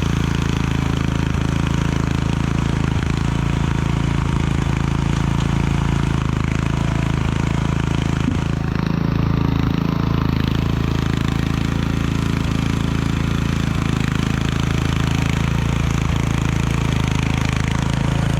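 Murray riding lawn mower's engine running steadily at an even speed, revived after sitting for a year or two.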